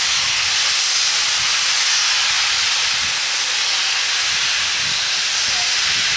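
Pennsylvania Railroad 0-6-0 steam locomotive #643 venting steam in a loud, steady hiss.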